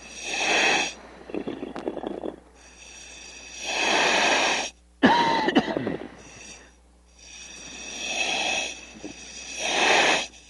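A diver breathing through his breathing gear, heard over the dive radio: about four drawn-in breaths, each a second-long hiss, with rougher, crackly exhales between them. A short falling squeal sounds about halfway through.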